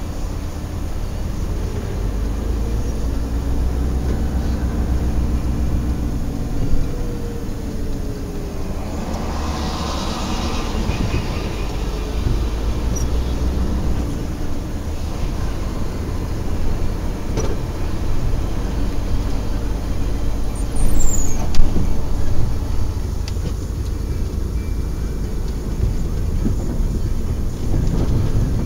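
Truck engine running and the cab rumbling and rattling while driving, heard from inside the cab, with a brief hiss about nine seconds in.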